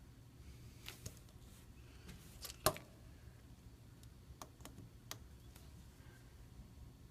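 Light, scattered clicks and taps of small tools and tiny phone screws being handled on the work surface, with one sharper click that rings briefly about two and a half seconds in.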